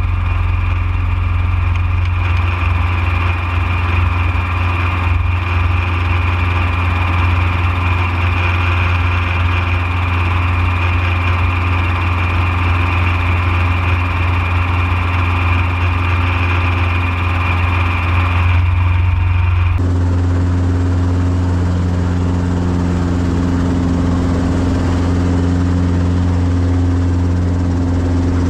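Small helicopter running on the ground at idle, its engine and rotor making a loud, steady drone with a deep hum underneath. About two-thirds of the way through the sound changes abruptly to a duller, lower hum as heard from inside the cabin.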